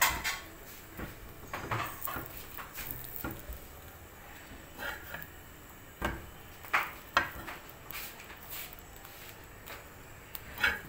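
A steel spatula knocking and scraping against a flat black griddle (tawa) while egg sandwiches are turned over on it: a scatter of short clinks and knocks, the sharpest a few clustered around the middle.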